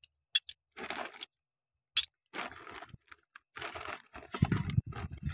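Clear plastic bag crinkling and light clicks of small metal clutch parts being handled, in short irregular spells, with dull knocks near the end.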